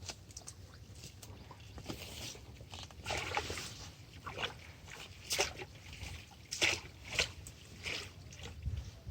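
Water splashing and sloshing in a handful of short bursts, the strongest in the middle of the stretch, over a low steady rumble.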